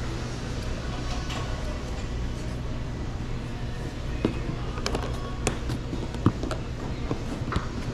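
Scattered knocks and taps from catering food containers and bags being handled and loaded, over a steady low hum; most of the knocks come in the second half.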